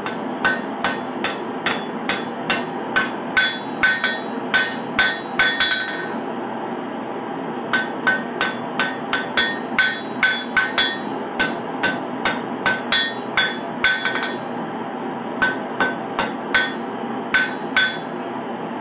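Hand hammer striking a red-hot katana blade on a steel anvil, forging the bevel. The blows come about two or three a second, each with a short metallic ring, in three runs broken by brief pauses. A steady background rush runs underneath.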